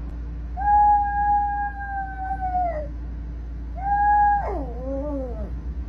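Small dog howling: one long, level howl that drops off at its end, then a second, shorter howl that wavers and falls away in pitch.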